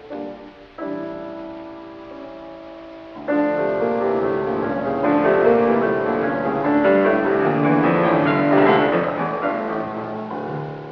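Solo piano in an old concerto recording with a narrow, dull top end. A chord is held, then from about three seconds in comes a louder, fuller passage of chords and runs, which tapers off near the end.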